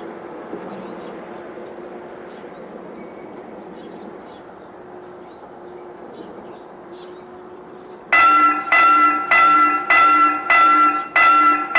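Railway level-crossing warning bell starting to ring about eight seconds in, a loud pitched ding repeating evenly just under twice a second: the crossing has been activated for an approaching train. Before it there is a steady rumbling hiss with faint chirps.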